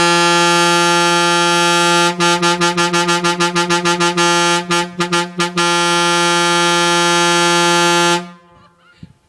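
Diesel truck's air horn sounding one long, loud, steady blast. For a few seconds in the middle it is chopped into a quick run of short toots, about four a second, and it cuts off suddenly about a second before the end.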